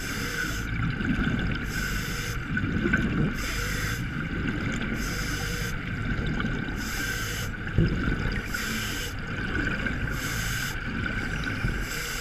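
Scuba breathing heard underwater: regular bursts of regulator hiss about once a second, with low bubbling gurgles of exhaled air, over a steady high hum.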